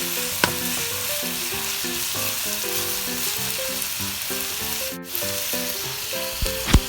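Pork belly sizzling as it fries in hot olive oil with green onions and garlic, a steady hiss, with a sharp knock about half a second in and another near the end.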